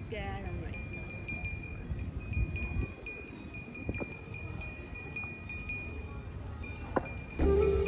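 Wind chimes tinkling, many light strikes ringing on at a few steady high pitches, over a low background rumble.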